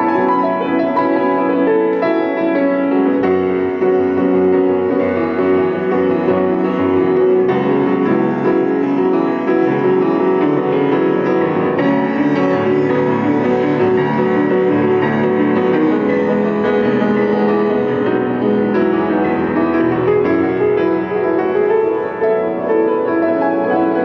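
Solo grand piano played live: a continuous, many-noted passage with notes ringing into one another.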